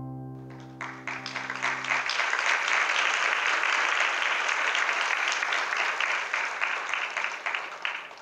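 Audience applauding, starting about a second in as the last held chord of the music dies away, then fading near the end.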